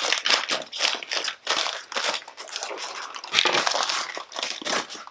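Plastic packaging crinkling and crackling irregularly as squishy toys are pulled out of it by hand.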